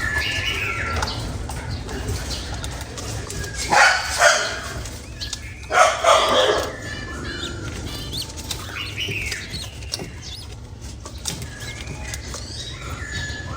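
Falcon flapping its wings in two loud bursts, about four and six seconds in, with other birds chirping now and then.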